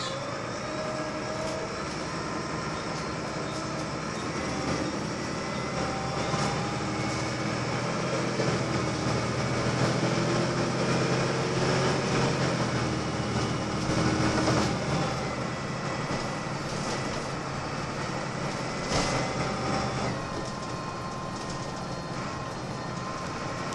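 Volvo B6BLE single-deck bus running along, heard from inside the passenger saloon: the engine's steady drone under road and body noise, louder with a rising pitch in the middle as it pulls harder. There is one sharp knock or rattle about 19 seconds in.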